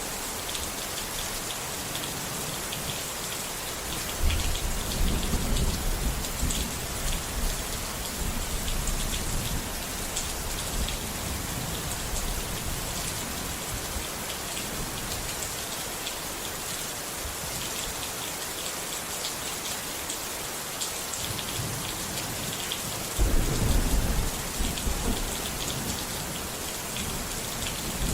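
Steady rain falling, with thunder rumbling twice: a long roll about four seconds in and a sharper clap near the end.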